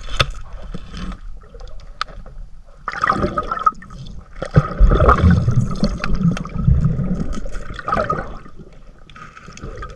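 Bubbling and gurgling water heard underwater, coming in four surges about a second long, the strongest near the middle.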